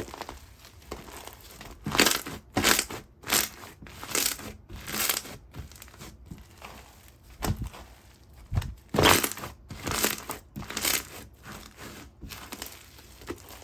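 Chocolate slime being squeezed and pressed by hand: a run of short, irregular squishes and crackles, busiest in two spells, one a couple of seconds in and one about two-thirds through.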